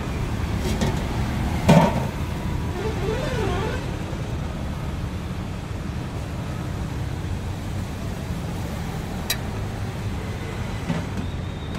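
Steady low rumble of road traffic, with a single clank about two seconds in and a sharp click about nine seconds in.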